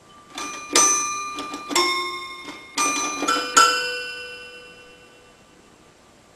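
Toy piano keys pressed by a cat's paw: about six clusters of notes struck over three and a half seconds, several bell-like notes sounding together each time, the last ones ringing out and fading.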